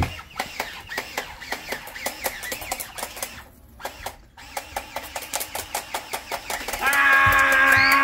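Fast, even clicking, about five clicks a second, with a short break near the middle. About a second before the end, a loud, steady pitched tone starts.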